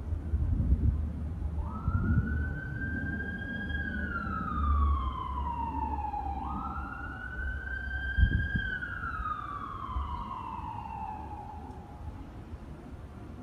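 Emergency vehicle siren sounding a wail: twice it rises quickly in pitch, holds, then falls slowly, over a low rumble.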